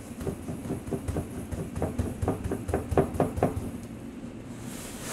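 A quick run of light clicks and taps against a glass jar, about three or four a second, as salt is spooned into it; the taps stop after about three and a half seconds.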